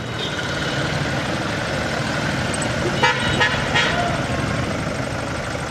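Street traffic: a steady car engine rumble, with a few short horn toots about three seconds in.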